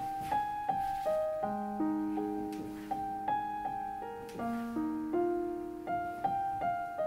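Background piano music: a gentle melody of single notes over lower held notes, about three notes a second.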